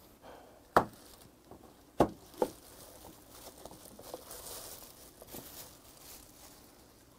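Three sharp snaps within the first few seconds, then plastic wrap crinkling as the cling-film-covered lid of a plastic food container is pulled off.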